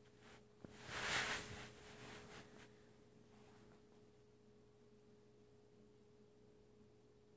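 A sleeping puppy snoring: one loud breathy snore about a second in, trailing off by about three seconds. A steady faint hum runs underneath.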